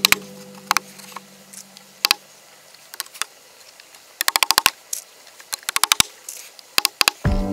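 Claw hammer tapping nails into the wooden boards of an Adirondack chair. Sharp single taps come first, then quick runs of several taps in the second half.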